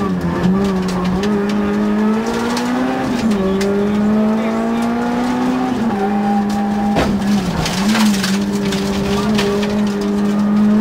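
Peugeot 106 rally car's engine heard from inside the cabin, pulling hard at speed: its note climbs and then drops several times as the driver shifts gear. A short burst of sharp clatter comes about seven seconds in.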